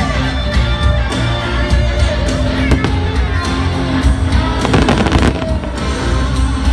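Fireworks show music playing loudly over loudspeakers, with fireworks popping and crackling through it, the pops thickest about five seconds in.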